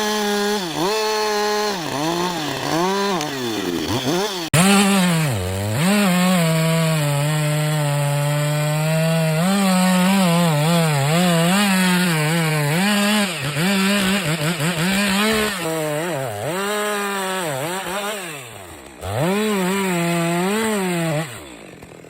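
Gasoline chainsaw cutting through a log, its engine pitch dropping again and again as the chain bogs down in the wood and recovering to full revs between cuts. The engine falls away near the end.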